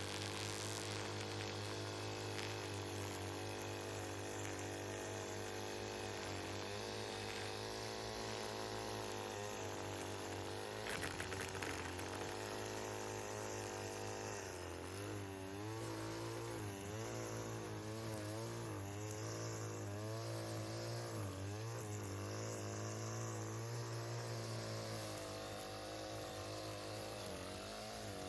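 Lawn mower engine running steadily, its pitch wavering up and down as the load changes while cutting grass, with a short clatter about eleven seconds in.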